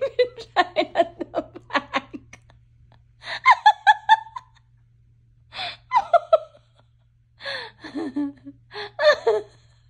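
A woman laughing in fits: a quick run of ha-ha bursts at first, then shorter bursts broken by gasping breaths and brief pauses.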